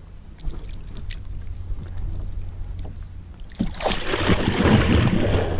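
A big rainbow trout thrashing at the surface beside a kayak while held by hand. Light drips and lapping water come first, then a burst of loud splashing starts about three and a half seconds in and lasts nearly two seconds.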